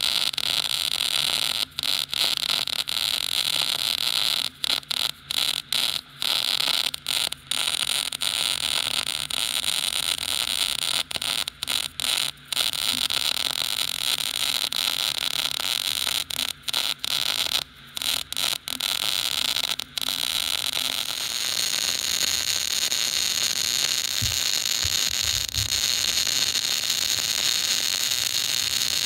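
MIG welding arc with .035 wire in short-circuit transfer: a steady crackling hiss that keeps breaking off briefly over the first two-thirds, then runs smoother near the end. The breaks fit an unstable arc from too long a wire stickout with a wide nozzle.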